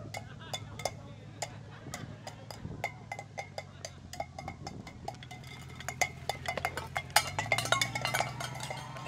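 Cans tied behind a pickup truck clanking and rattling along the pavement in quick, irregular clinks, over the steady low hum of the truck's engine. The clanking is thickest and loudest a little after seven seconds in.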